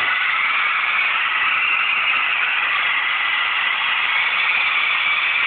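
Esky Lama coaxial micro RC helicopter's small electric motors and rotors whirring steadily as the helicopter spins in place on the floor. A stripped main gear on one motor leaves the rotors unbalanced, so the body turns like a top instead of lifting.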